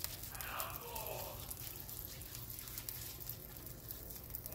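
Faint soft handling noises with small scattered clicks as gloved hands turn a large cooked porterhouse steak over a plate of its juices, with a short falling sound near the start.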